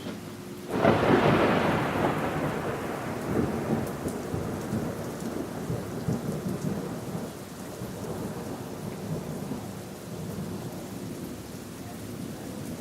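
A thunderclap breaks suddenly about a second in, then rumbles on and slowly fades over many seconds, over steady rain.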